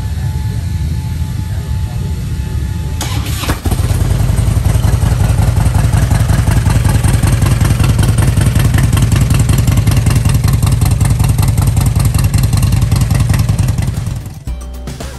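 Harley-Davidson V-twin motorcycle engine started about three and a half seconds in, then running loudly and steadily with a pulsing low rumble until it stops abruptly near the end. A quieter engine rumble is already there before it fires.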